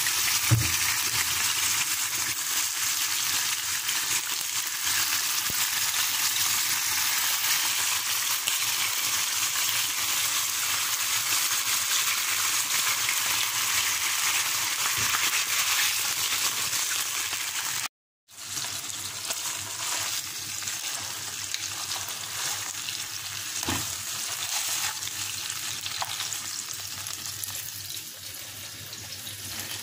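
Chicken breast frying in hot oil with soy sauce in a nonstick pan: a steady sizzle. It breaks off for an instant about eighteen seconds in, then goes on a little quieter.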